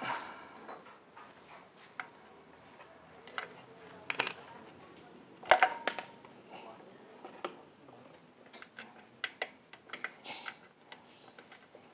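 Metal hand tools clinking and clanking against metal, a string of scattered sharp clicks and knocks. The loudest is a clank about five and a half seconds in that rings briefly.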